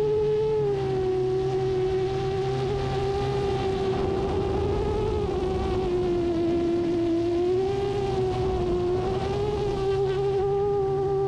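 FPV racing quadcopter's motors and propellers whining steadily in flight, a buzzing tone whose pitch drifts gently down and up as the throttle changes.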